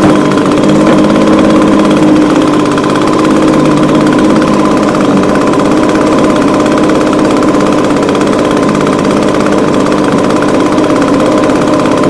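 Echo ES250 handheld blower/shredder vac's small two-stroke engine idling steadily at a constant speed.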